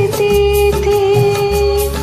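A woman singing one long, steady held note over a Bollywood film-song karaoke backing track with a pulsing bass line.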